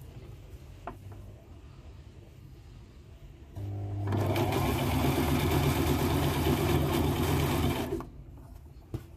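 Brother LX3817G electric sewing machine stitching a seam through two layers of fabric: it starts about three and a half seconds in, runs at a steady speed for about four seconds, then stops.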